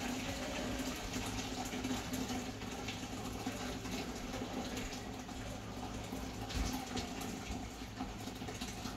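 Hot water being poured from a pot through a strainer of sorrel into a large stainless steel stockpot: a steady splashing pour.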